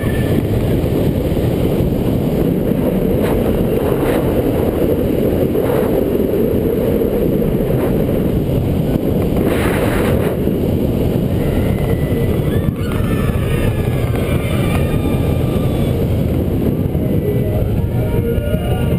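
California Screamin' steel roller coaster train running at speed along its track, heard from the front seat as a loud, steady rush of wind on the camera microphone over the rumble of the wheels.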